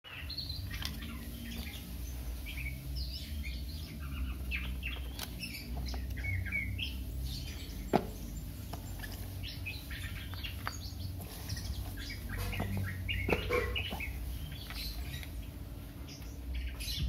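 Small birds chirping here and there over a steady low hum, with light handling of a plastic lamp and its cardboard box; a single sharp click about eight seconds in.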